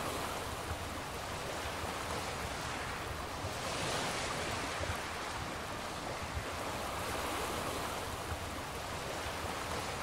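Ocean surf: a steady rush of waves washing in, swelling about four seconds in.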